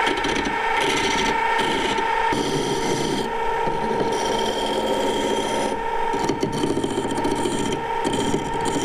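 A lathe file stroked repeatedly against the spinning threaded end of a metal bolt, a rasping scrape with each stroke, cleaning up freshly die-cut threads. Under it the mini lathe runs with a steady whine.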